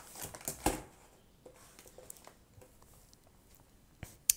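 Cardboard biscuit box handled and set down on a table: light rustling and a knock in the first second, then quiet, then one sharp click near the end.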